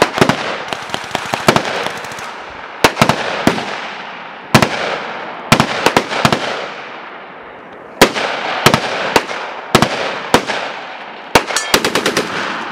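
Belt-fed machine gun firing single shots and short bursts, each report trailing off in a long echo, ending with a quick string of about six rounds.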